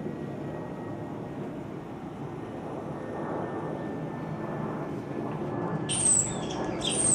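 A steady low rumble; about six seconds in, a common starling starts squawking and giving sharp falling whistles, which become the loudest sound.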